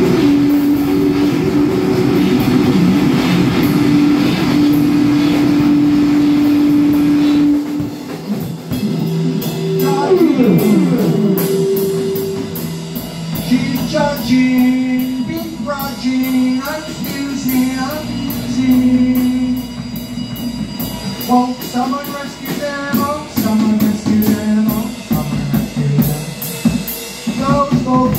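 Live band music from a drum kit and electronic keyboard. A sustained droning chord holds for the first several seconds and a falling pitch glide comes about ten seconds in. After that the drums keep a steady beat under short stepping melodic notes, with a voice through the microphone.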